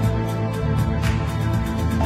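Background music with sustained notes over a light, regular beat.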